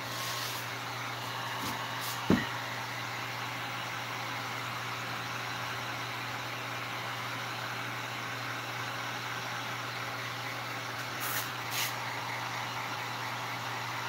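Electric heat gun blowing steadily with an even motor hum as it heats a vinyl seat cover to shrink out the wrinkles. A single sharp knock about two seconds in.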